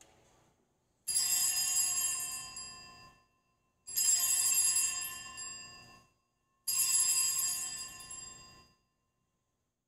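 Altar bells rung three times, each ring fading out over about two seconds, marking the elevation of the chalice after the consecration at Mass.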